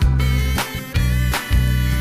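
Background music: a song with deep sustained bass and a steady drum beat, with no singing.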